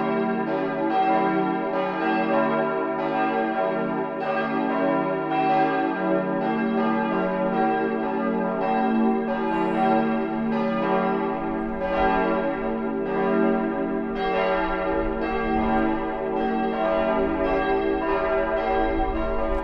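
Full peal of a church's bells, all swinging at once: their strikes overlap in a continuous ringing clang, tolling to call the congregation to the Sunday service.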